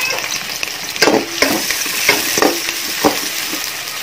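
Ginger, garlic and green chillies sizzling in hot oil in a large aluminium pot. Over the steady hiss come about five scrapes and clinks of a metal utensil stirring them.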